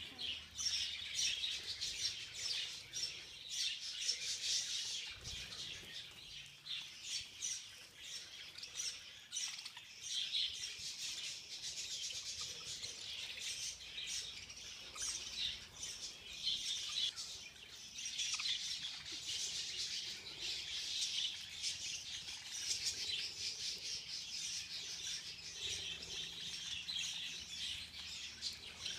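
A flock of budgerigars chattering, a dense, continuous mass of short, overlapping chirps and warbles.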